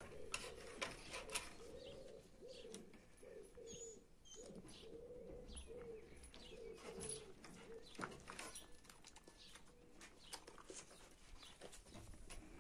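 Faint cooing of a dove: a run of soft low notes, about two a second, that dies away past the middle. Scattered light clicks and rustles of a hand rubbing fur run over it.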